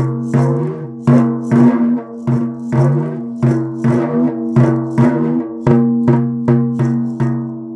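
Small bodhran frame drum beaten in a steady rhythm, about two to three strokes a second. Each stroke rings with a low, drum-like tone, and the playing stops near the end, letting the last stroke ring out.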